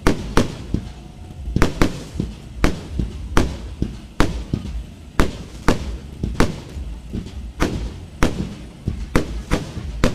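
Fireworks: a string of sharp bangs from aerial shells launched and bursting overhead, about two a second at uneven spacing.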